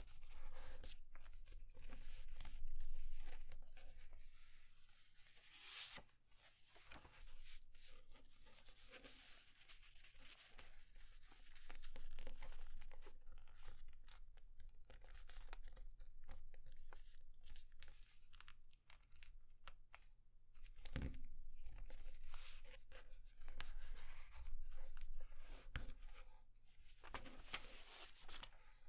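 A sheet of paper being folded by hand into a paper airplane: crisp rustling and crinkling as it is handled, with sharp creasing strokes as fingers press and run along the folds on a cutting mat.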